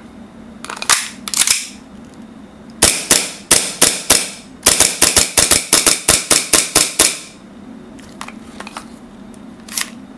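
Tokyo Marui Hi-Capa gas blowback airsoft pistol firing, each shot a sharp pop. There are two shots, then a quick string of about fifteen at roughly four a second, and one faint pop near the end.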